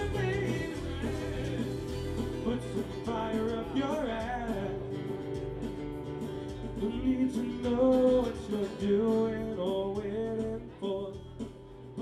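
Live band playing a country-rock song on electric and acoustic guitars.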